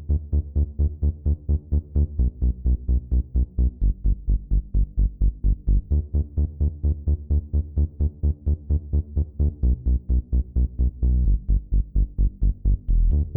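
Electronic background music with a steady pulsing beat of about four strokes a second, heavy in the bass.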